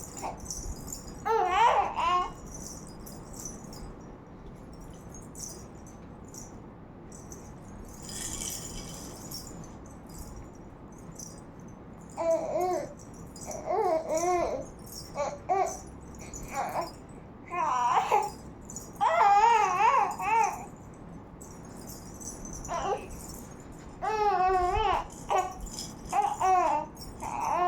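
A baby babbling and squealing in short, high, wavering cries, once near the start and then often through the second half, with a toy rattle shaken now and then.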